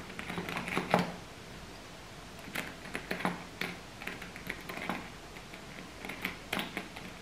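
Handling a Louis Vuitton monogram duffle bag: irregular clicks, taps and short rustles as its closure and strap are fitted. The sharpest click comes about a second in.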